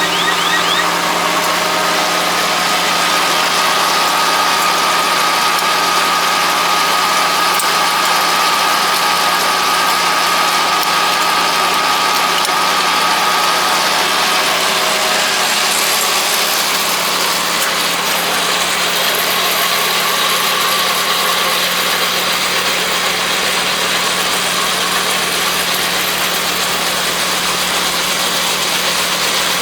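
Kubota L3200 compact tractor's three-cylinder diesel engine running steadily under load, with the driveline and machinery of a PTO-driven mini round baler mixed in. A steady higher whine sits over the engine through roughly the first half.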